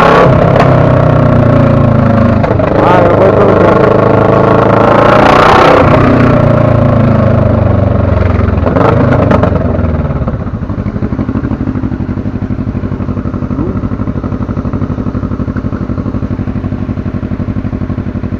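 Motorcycle engine pulling away and accelerating, rising in pitch and dropping back at each gear change, then settling to a steady idle about ten seconds in.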